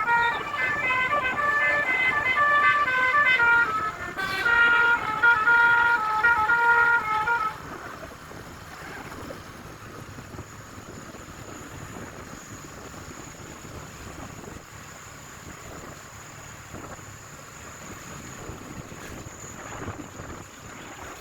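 Basuri musical vehicle horn playing a quick tune of stepped notes, several sounding at once, that stops abruptly about seven seconds in. After that only a faint steady rush of wind noise remains.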